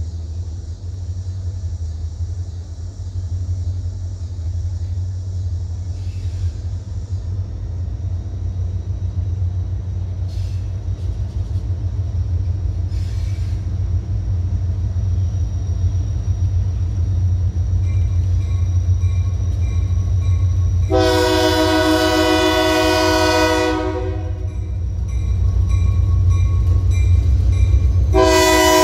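Maryland Midland diesel locomotives approaching, their low engine rumble growing louder as they near. Near the end of the approach the lead locomotive sounds a chord air horn in one blast of under three seconds, then starts a second blast just before the end.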